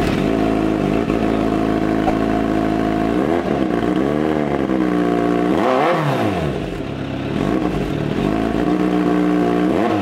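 Kawasaki Z900's inline-four engine idling through a Yoshimura Alpha slip-on exhaust, with three quick throttle blips in the middle; the last rev climbs highest before it settles back to a steady idle.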